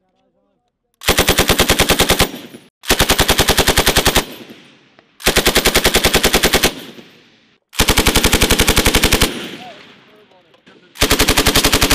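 Belt-fed machine gun firing five short bursts of automatic fire, each about one and a half seconds long at roughly ten rounds a second, with the report echoing away after each burst. The last burst starts near the end.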